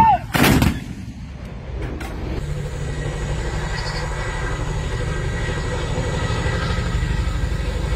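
One sharp blast about half a second in, from a towed field howitzer firing. Then a CH-47 Chinook tandem-rotor helicopter flying over, its rotors giving a steady low beat.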